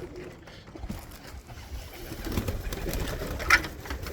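Pigeons cooing in a loft, a low murmur that grows louder after the first second or so, with one brief sharp sound about three and a half seconds in.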